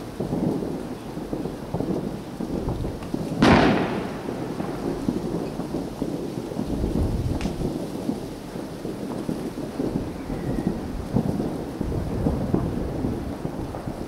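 Distant fireworks, many bursts merging into a continuous low crackling rumble like rolling thunder, with one loud sharp bang about three and a half seconds in and a fainter crack about halfway through.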